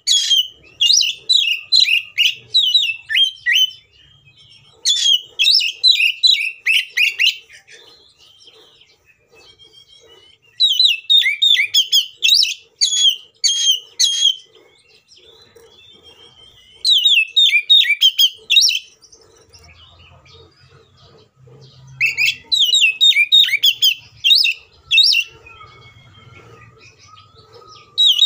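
Oriental magpie-robin singing loud, rapid phrases of varied high notes in bursts of two to four seconds, with short pauses between; the title calls it gacor, full of isian and in a combative mood, the song used to provoke other magpie-robins.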